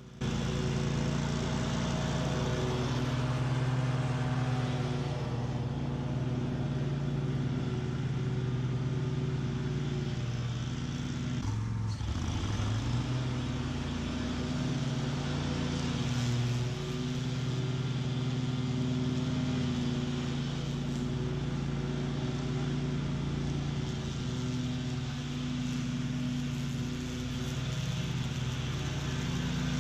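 BOB-CAT QuickCat 36-inch stand-on mower running steadily at full throttle, its blades cutting tall, thick weeds. The engine note dips and wavers briefly near the middle.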